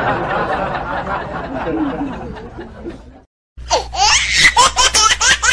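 Laughter sound effects: a group laughing that fades away about three seconds in, then after a brief silence a high-pitched laugh starts, quick and repetitive with sharply gliding pitch.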